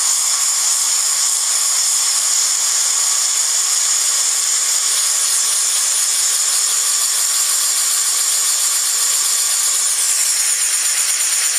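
Compressed air hissing steadily from a small nozzle and venturi, blowing at a plastic fan blade. About ten seconds in, the upper part of the hiss shifts and takes on a faint flutter.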